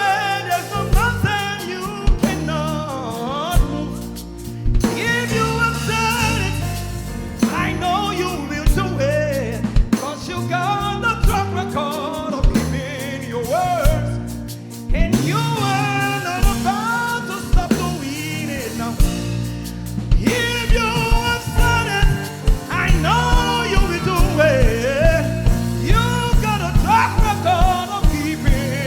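Live gospel praise music: a lead voice sings over a band with drum kit and bass. The drumming grows busier from about two-thirds of the way in.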